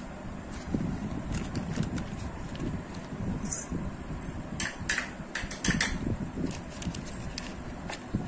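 Butter paper crinkling and crackling as it is pressed into a greased steel cake pan, with a quick cluster of sharp clicks and scrapes about halfway through.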